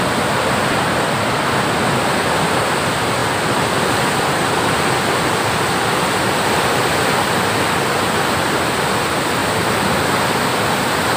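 Water rushing out beneath the open sluice gates of a canal barrage and churning into white water below, a steady, unbroken rush.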